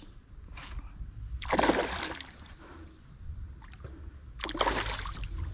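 A small peacock bass splashing at the water's surface as it is reeled in: two splashes, about a second and a half in and again near the end.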